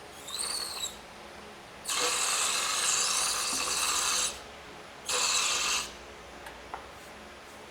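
Liquivac hand-pump vacuum oil extractor pulling the last of the used oil out of a small lawn mower engine. A brief squeak comes first, then a long rasping rush of noise and a shorter one a second later.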